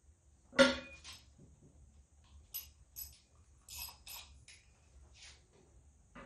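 A dog barks once about half a second in, short and loud. A few faint clicks and clinks follow.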